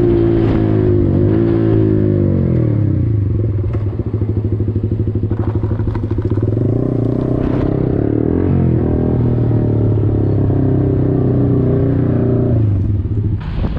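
Yamaha R15's single-cylinder engine dropping in revs as the motorcycle slows, then running at low revs with a pulsing beat while it rolls to a stop and idles. The engine sound stops about a second before the end.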